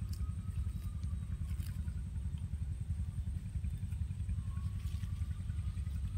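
A steady low rumble throughout, with a faint drone that slowly rises and falls in pitch twice. Over it are faint clicks and rustles of cut reed stalks being handled and bundled.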